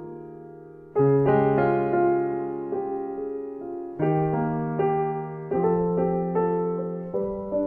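Background piano music: slow, soft chords struck every couple of seconds, each fading away, with single notes between.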